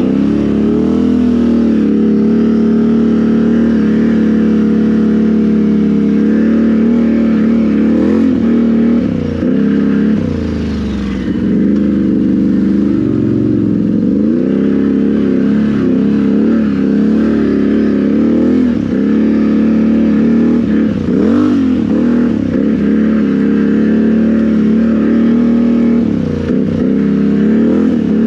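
Can-Am Renegade XMR 1000's V-twin engine running loud through RJWC dual aftermarket exhausts with a Monster Tune, held at a steady pull while riding a rough trail. The revs dip and pick back up briefly several times as the throttle eases off and on.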